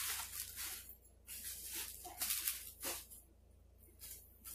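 Packaging being handled: rustling and crinkling in several short bursts.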